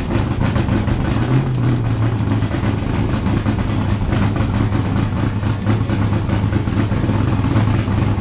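Superboat-class offshore race boat's engines idling steadily, with a brief blip of the throttle about a second and a half in.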